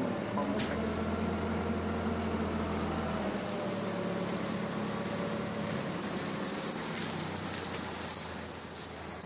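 An engine running steadily with a low hum; the deepest part of the hum drops out about three seconds in and the rest eases off later.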